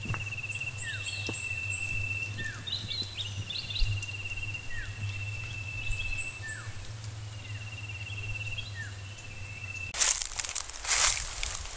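Open-country ambience of insects and birds: a steady high insect buzz, a repeating trilled call and short chirps. About ten seconds in it gives way to loud crunching of footsteps in dry leaf litter.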